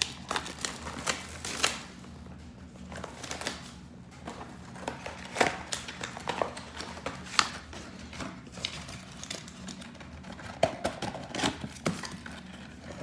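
Trading card box and packs being handled and opened: irregular clicks, taps and crinkles of cardboard and pack wrappers.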